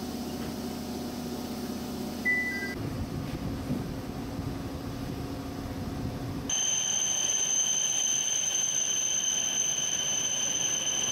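Station platform sounds in three cuts: a steady low hum with a brief beep about two seconds in, then low rumbling noise. From about six and a half seconds, as a Tohoku Shinkansen stands at the platform, a steady high-pitched electronic warning tone rings on and is the loudest part.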